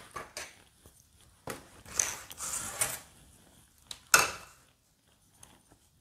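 Watercolour painting handling sounds, brush and palette. A short stretch of scraping and rubbing comes about two seconds in, small ticks are scattered between, and a sharper knock a little after four seconds is the loudest sound.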